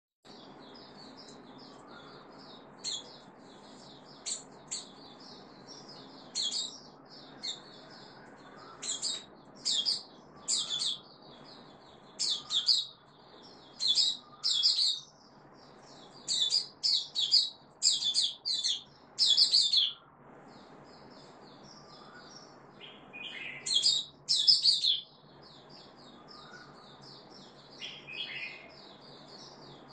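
Caged bulbul singing: loud, brisk bursts of high chirps and warbles, coming in quick runs through the middle and again near the end. Softer continuous twittering runs underneath.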